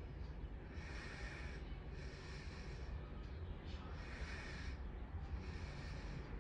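Nasal breathing close to the microphone, a regular run of in-and-out breaths, over a steady low rumble.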